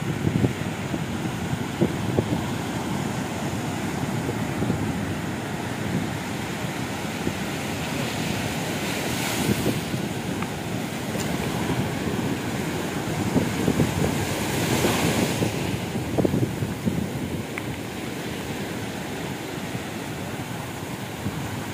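Sea surf washing up a sandy beach, with two louder swells of breaking waves about nine and fifteen seconds in, and wind buffeting the microphone.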